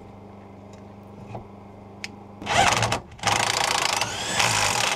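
Cordless impact driver spinning and hammering a nut back onto a rusty fuel-tank strap stud in a few short bursts, starting about halfway through, with a brief rising whine near the end.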